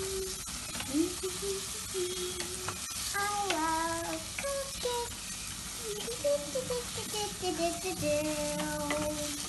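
Diced vegetables sizzling as they fry in a pressure cooker, stirred with a spatula that scrapes and knocks against the pot. A child hums a wandering tune over it.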